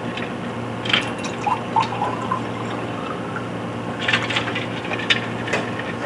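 Steady background hum with scattered light clicks and rustles, in two clusters: one about a second in and one around four to five seconds in.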